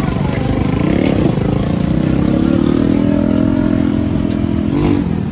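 A vehicle engine running close by. Its pitch climbs about a second in, holds steady, then drops away near the end.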